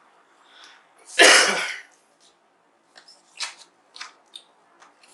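A single loud cough about a second in, followed by a few faint light clicks.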